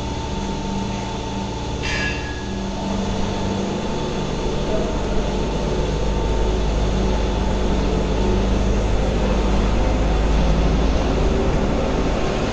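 Steady mechanical drone of dairy barn machinery: a low hum made up of several steady tones over a noisy rush. A brief high squeal comes about two seconds in.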